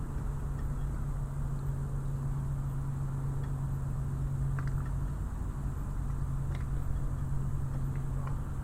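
Harbour ambience dominated by a steady low engine hum, with a few faint clicks and taps over it.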